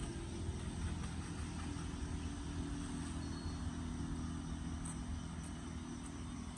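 Steady low rumble of road traffic, with a couple of faint clicks about five seconds in.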